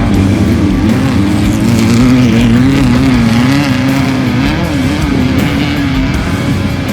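Off-road race vehicle's engine running hard, its pitch rising and falling quickly as the revs swing up and down.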